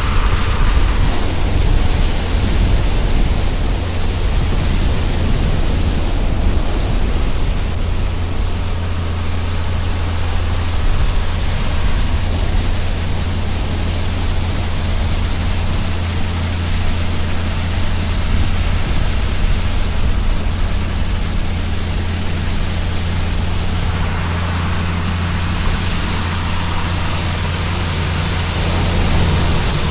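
Heavy farm machinery running: a steady low engine drone under a loud, even rushing noise, with the hiss growing a little louder about three-quarters of the way through.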